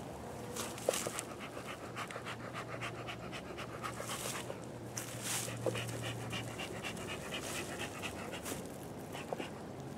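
Bee smoker's bellows worked at the hive entrance, a few separate puffs of air, along with a fast, even panting rhythm of about five or six breaths a second through much of it.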